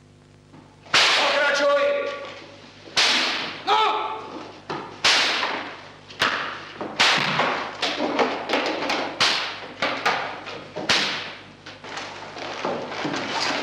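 A whip cracked again and again, about a dozen times at roughly one-second intervals, each crack ringing out and fading in the theatre hall.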